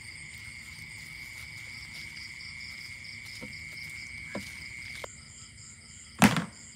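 Night chorus of frogs and insects: a steady high trill stops suddenly about five seconds in, under fast, evenly repeating calls higher up. A single loud knock comes near the end.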